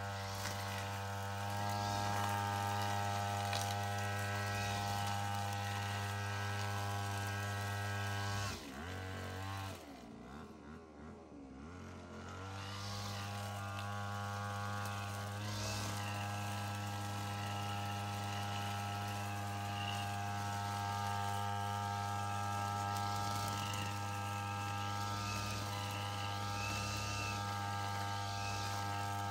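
A small motor running at a steady pitch. About eight seconds in it winds down and nearly stops, then comes back up to the same steady speed about four seconds later.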